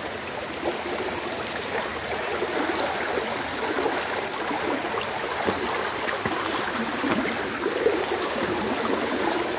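Floodwater of a swollen creek rushing steadily, a continuous even rush of running water.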